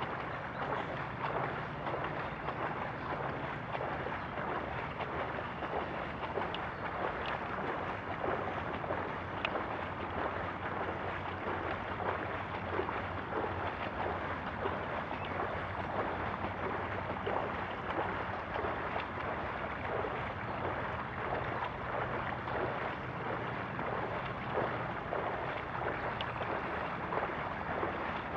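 Bicycle wheels cutting through shallow floodwater: a steady rush of sloshing and spray, with wind noise on the microphone.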